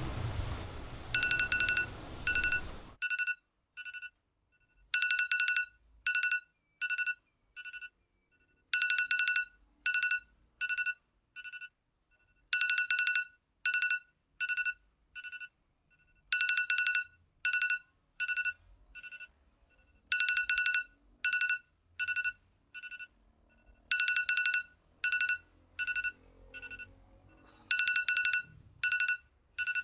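A smartphone on a bedside table sounds a repeating electronic beep pattern, cycling about every four seconds: a bright burst of beeps followed by a few shorter, softer ones. Before it, a low city hum cuts off about three seconds in.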